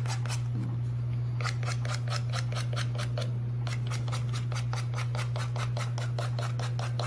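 Nail file rasping back and forth along the edge of a decoupage plaque, sanding off the overhanging napkin paper in quick strokes, about five a second, with a short pause about a second in. A steady low hum runs underneath.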